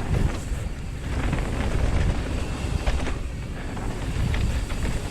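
Wind buffeting the microphone and tyres rumbling over a dirt trail as a mountain bike rides fast downhill, with scattered clicks and rattles from the bike.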